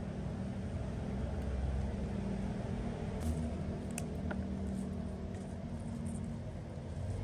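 Steady low machine hum, with a few faint light clicks around three to four seconds in.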